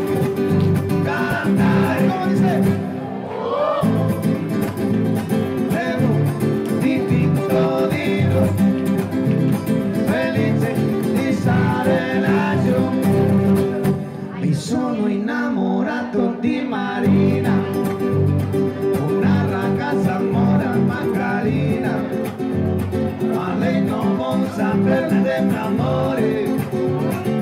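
Music: a song with singing over guitar accompaniment, playing without a break.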